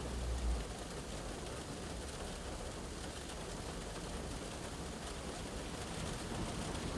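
Steady rain shower falling on a car's roof and windows, heard from inside the cabin. A passing vehicle's low rumble fades out in the first half second.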